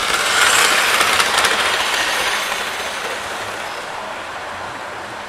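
Model train running along the layout's track close by, a steady rumbling rattle of wheels on rail that is loudest about half a second in and then fades gradually as it moves away.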